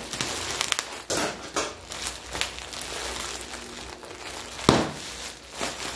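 Packaging crinkling and rustling in irregular bursts as a squashed body pillow is unwrapped, with the loudest sharp rustle about four and a half seconds in.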